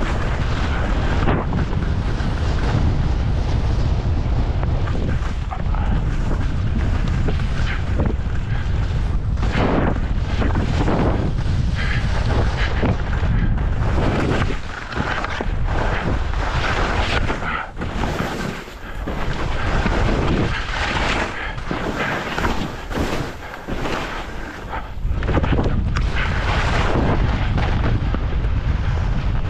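Wind buffeting the microphone of a skier's camera during a downhill run, with skis hissing on the snow, the swishes swelling and fading. The wind rumble thins out a few times about halfway through.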